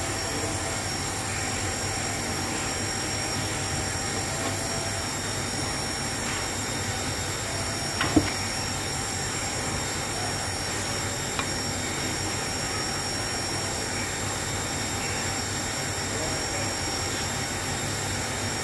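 Steady hum and hiss of background noise, with one sharp knock about eight seconds in and a fainter tick a few seconds later.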